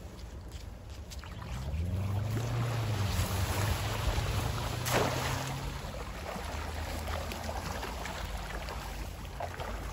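Shallow stream running over rocks, with a low drone that swells in about a second and a half in and fades by about six seconds, and one brief sharp whoosh about halfway through.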